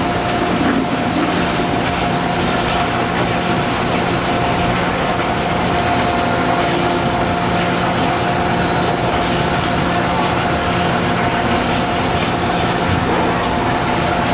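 Steady mechanical drone with a few held hum tones, at a constant level without breaks, typical of workshop machinery or a burner running.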